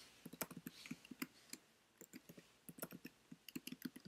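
Faint, irregular clicks of laptop keys being tapped, waking the computer from its screensaver.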